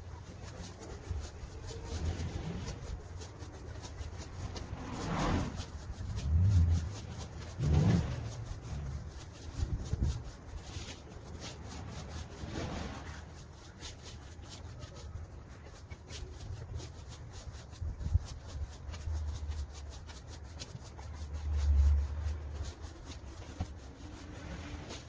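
A leaf rake dragged through dry fallen leaves and grass in repeated strokes: a running series of crackling scrapes.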